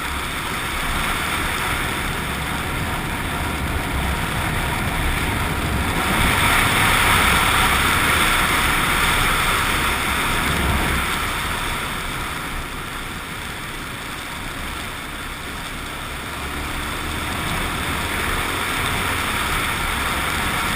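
Suzuki XF650 Freewind's single-cylinder engine running under way, mixed with a steady rush of wind and road noise. The rush grows louder from about six seconds in, then eases off a few seconds later.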